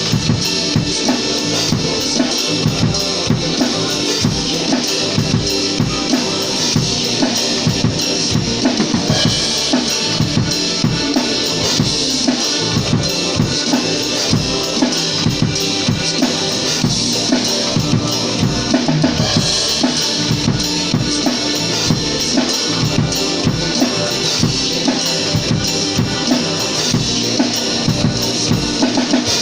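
Rock music dominated by a drum kit playing a steady beat on bass drum and snare, with rimshots.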